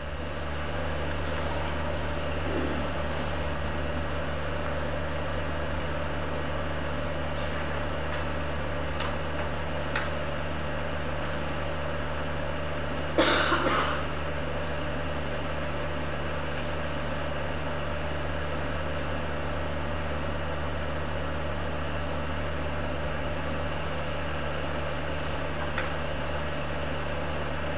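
A steady low hum with a faint higher tone over it, unchanging throughout. About 13 seconds in there is one brief, louder burst of noise, and a few faint ticks are scattered elsewhere.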